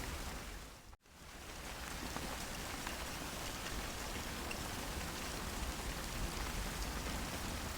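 Steady rain falling, an even hiss with a dense patter of drops. About a second in it dips to silence for an instant and comes straight back.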